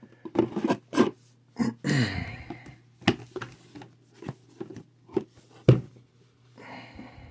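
Cardboard collector-box parts being handled: a string of light knocks, taps and scrapes as the box's cardboard tray and insert are lifted and set down, the sharpest knock a little before the end, with a short rubbing of cardboard near the end.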